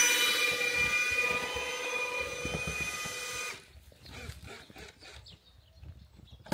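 Electric drill with a mixing paddle running at steady speed, stirring the CR 90 waterproofing slurry, a whine of several tones that stops abruptly about three and a half seconds in. A few light knocks and clicks follow.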